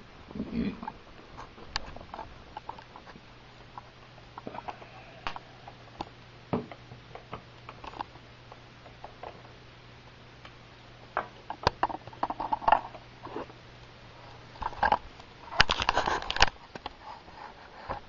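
Scattered clicks, taps and rustles of handling, with a denser burst of rustling about sixteen seconds in. A faint steady low hum runs under the middle part.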